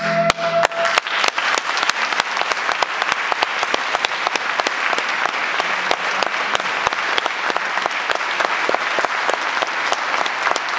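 Audience applause: dense, steady clapping from many hands. The last flute-and-harp note is still ringing for about the first second as the clapping starts.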